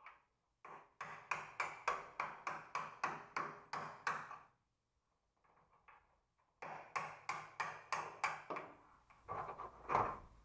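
Small hammer striking a steel punch set against a door hinge: quick metal-on-metal taps, about four a second, in two runs of a few seconds with a pause between. A few looser knocks follow near the end, one of them the loudest sound.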